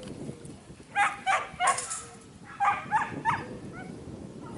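Dog whining in short high calls, three close together about a second in and three more a second or so later.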